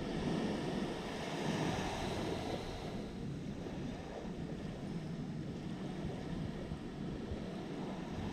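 Ocean surf washing onto a sandy beach, with wind buffeting the microphone: a steady, even rush of noise.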